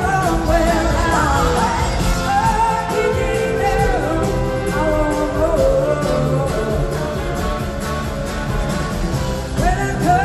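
Live blues-rock band playing loud and full: drums, bass, electric guitars, keyboards and a horn section, with a wandering melody line on top.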